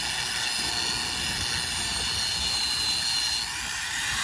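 Angle grinder running against the rubber sidewall of a semi truck tire: a steady whine over a rushing noise as it grinds the sidewall thin to make a weak spot for the tire to burst.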